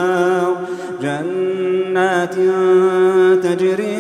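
Unaccompanied male Quran recitation in Arabic: a single voice chanting in long, drawn-out held notes with small melodic turns, briefly breaking and sliding back in about a second in.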